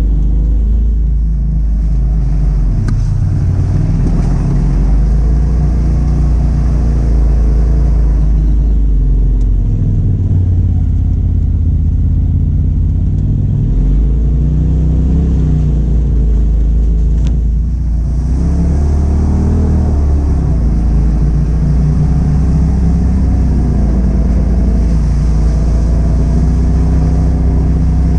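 Side-by-side UTV engine running under throttle on a rough trail, its revs rising and falling over and over with a heavy low rumble, heard from inside the open cab.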